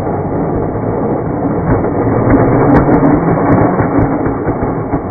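Hobby-grade RC snowmobile's electric motor and track running, a loud steady whirring hum that grows stronger in the middle.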